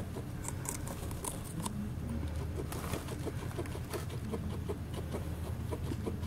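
Guinea pig chewing a celery stalk close up: a quick, uneven run of small crunching clicks over a low steady hum.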